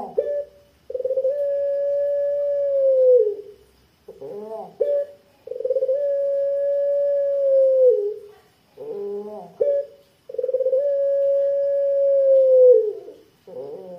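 Puter pelung, a pet ringneck dove bred for a long call, cooing three times. Each call is a short rising note and a brief note, then one long, thick, level 'kwook' of about two seconds that drops in pitch at its end.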